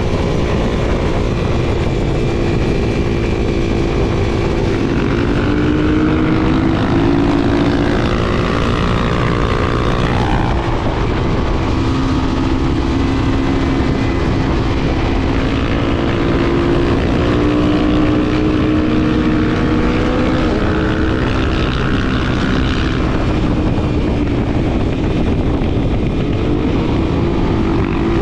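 Honda XR250 Tornado's single-cylinder four-stroke engine running under way while riding, its pitch climbing and dropping several times as the rider works the throttle and gears, over a steady rush of wind noise.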